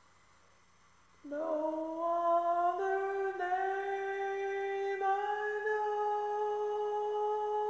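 A voice singing a cappella: after about a second of near silence it comes in on one long note, slides up a little, then holds it steady.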